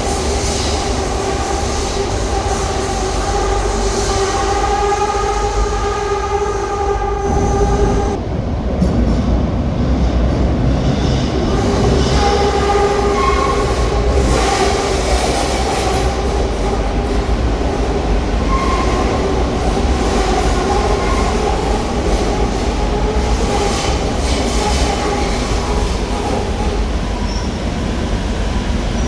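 A CAF 2000B Madrid Metro train running through an underground station, with a steady whine over a low rumble. The whine changes pitch about eight seconds in.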